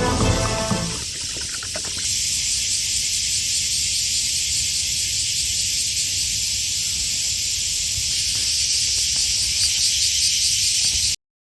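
Steady high-pitched hiss with a faint low rumble beneath it, starting as music fades out about a second in and cutting off suddenly near the end.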